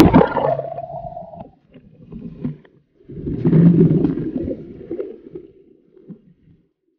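A camera plunging under the sea with a splash, then muffled underwater sound of bubbles and churning water as a swimmer dives. A second swell of muffled bubbling comes about three seconds in and fades out.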